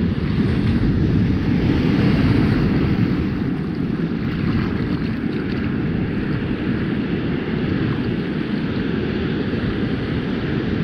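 Wind buffeting the microphone as a steady low rumble, over the wash of ocean surf.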